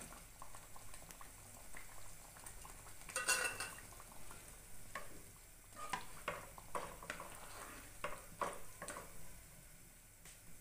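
Mushroom pieces dropped into gravy in a non-stick kadhai, then stirred in with a spatula: soft scrapes and knocks against the pan, with a louder clatter about three seconds in and a run of short knocks later on.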